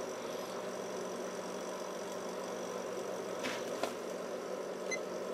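A power supply's cooling fan running steadily: an even whirring hum with several fixed steady tones in it. Two faint ticks come about three and a half seconds in.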